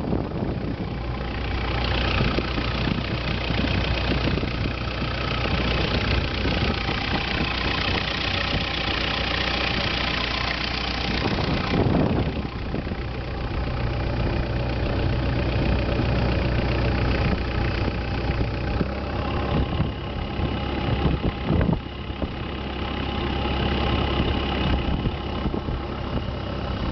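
Longtail boat's engine running steadily underway, with a rush of wind and water over it that drops off about halfway through. Later a higher whine joins the engine note.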